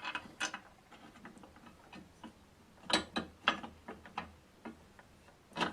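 Ratchet spanner clicking in short, irregular bursts as bolts are done up.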